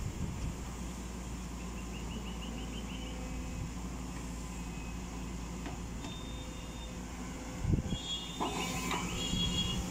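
Caterpillar hydraulic excavator's diesel engine running steadily while the arm works. Shortly before the end there is a louder knock as the bucket digs into wet mud, followed by high squeals.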